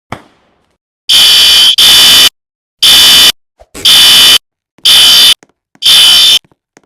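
Fire alarm sounding: a loud, high tone in pulses about half a second long, roughly one a second, the first two nearly joined. A short click comes about a second before the first pulse.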